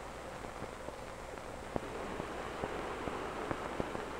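Steady rushing hiss on an old 16mm film soundtrack, with scattered crackles and pops and a low hum beneath.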